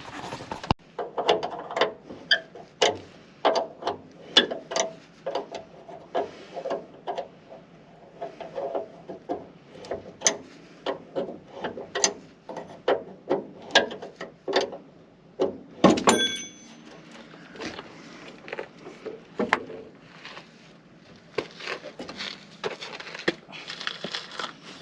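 Hand tools on metal during a repair to a broken-down Land Rover: a long run of sharp clicks, taps and clanks as a part is worked off. One louder, ringing metal clank comes about sixteen seconds in.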